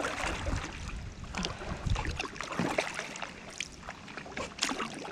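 Kayak paddle strokes in river water: short splashes and drips about once a second.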